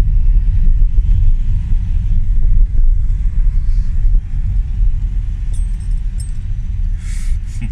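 Inside a moving car's cabin: a steady low rumble of engine and road noise, with a few faint light jingles and a short hiss near the end.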